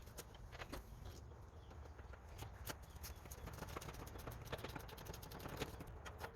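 Faint, irregular clicks and knocks of hand work on a riding mower, over a low steady rumble.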